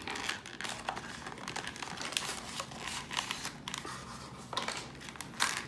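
Cardboard box and clear plastic blister tray of a Pokémon TCG theme deck being handled and unpacked: a run of small, irregular crinkles and crackles, with a few louder crackles near the end.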